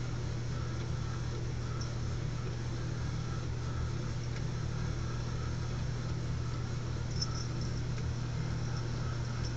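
Small electric motor of an automatic laser cat toy running steadily: a low hum with a fainter whir that pulses at a regular rate.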